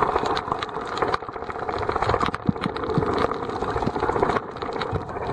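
Underwater sound picked up by a camera held below the surface over a reef: dense, irregular crackling clicks over a steady hum.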